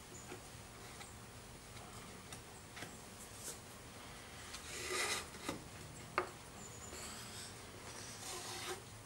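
Small pieces of eastern red cedar handled and shifted on a wooden workbench: a short scraping rub about five seconds in, a sharp click a second later, and a few light taps, as the tape-hinged mitered box sides are folded up into a box.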